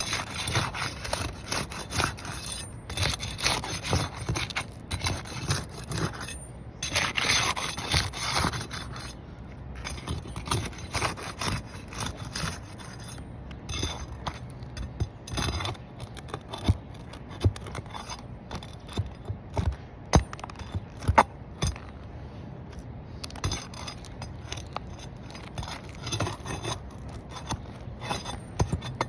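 Asphalt roof shingles being worked by hand: repeated scraping and rubbing strokes of a tool against the shingles, broken by sharp clicks and knocks, the sharpest a little past the two-thirds mark.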